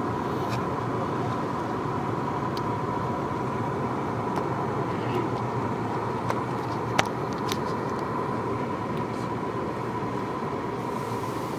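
Car cabin noise while driving slowly through snow: a steady rumble of road and engine with a faint steady whine, broken by a few sharp ticks, the loudest about seven seconds in.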